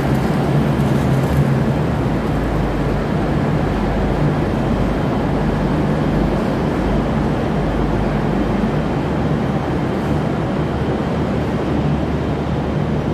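V/Line diesel passenger train moving past close alongside the platform: a steady low engine hum under a constant rumble of wheels on rail.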